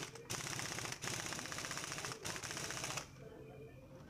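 Air impact wrench hammering in rapid short bursts as it runs down and tightens the magneto flywheel nut with a 19 mm socket. It stops about three seconds in.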